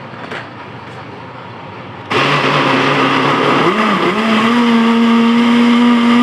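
Countertop blender switched on about two seconds in, its motor running loud and steady as it blends chunks of pineapple and ginger with lemon and pineapple-peel juice. Its pitch sags briefly, then settles.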